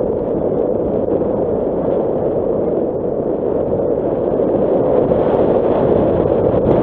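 Steady driving noise of a Nissan Qashqai on a loose gravel dirt track: tyre rumble mixed with wind buffeting the microphone, with a few faint clicks of stones, growing a little louder about two-thirds of the way through.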